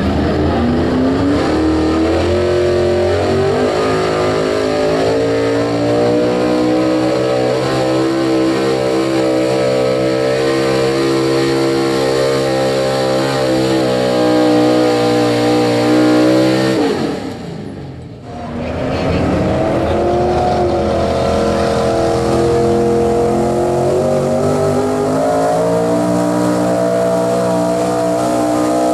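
Pro Stock class pulling truck's engine running hard at high revs under load while pulling a sled. The revs climb in the first few seconds and hold; about seventeen seconds in they fall off sharply and briefly, then climb back up and hold high again.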